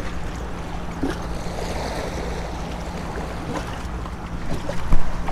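Small waves washing against granite jetty rocks, with wind buffeting the microphone. Scattered small clicks throughout, and a sharp knock about five seconds in.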